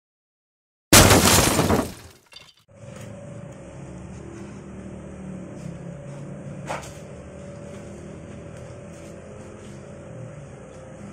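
A loud, short crash-like burst about a second in. Then the electric motor and drive of a stainless-steel bakpia filling cooker-mixer run steadily with a low hum and a held whine, with one sharp click midway.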